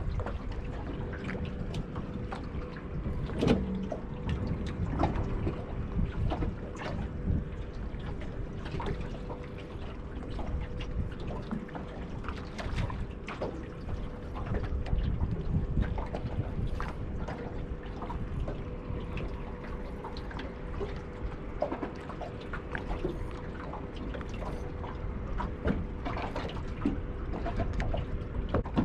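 Choppy water slapping and lapping against the hull of a small anchored boat in strong wind, with irregular splashes and knocks. A faint steady hum runs under it.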